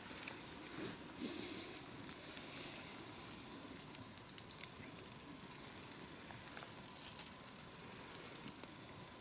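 Small campfire crackling faintly, with scattered small pops and ticks over a soft steady hiss.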